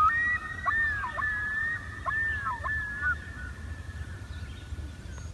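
A common loon calling across a lake: one long wavering call that swoops down and back up several times, trailing off after about three seconds, over a low steady hum.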